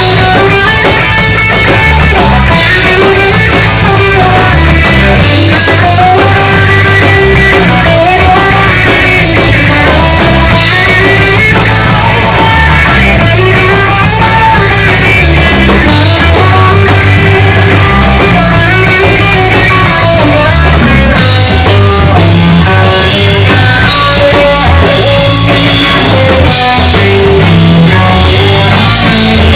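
A live instrumental surf-style rock band playing, very loud: an electric guitar melody over bass and a drum kit, recorded on a phone.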